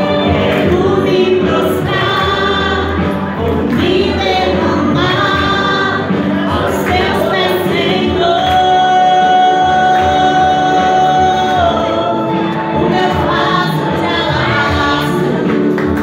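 A woman singing into a microphone over a musical accompaniment, holding one long note a little past the middle.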